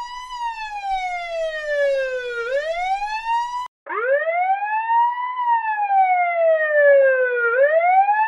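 Police siren wailing, its pitch falling slowly over about two seconds and rising again over about a second. It cuts out for a moment about four seconds in, then starts again from a low pitch and repeats the same wail.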